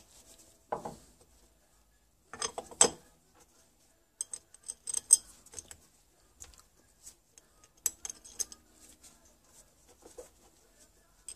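Light metallic clicks and clinks in several short clusters as the top cover and its screws are fitted back onto a motorcycle carburettor.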